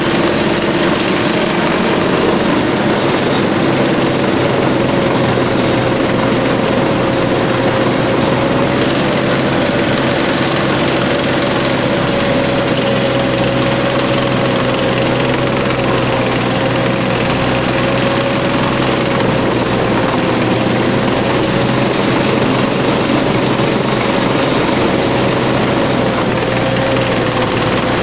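A 1963-built tank driving at low speed: its engine running steadily under the rumble of the running gear, with a steady high whine over it, heard from on top of the hull.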